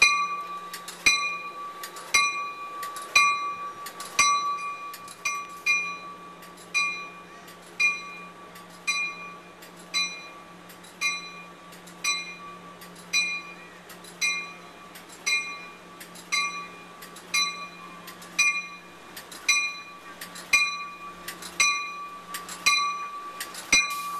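Train bell ringing steadily, one clear ringing strike about every second, over a low steady hum from the passenger train moving through the station.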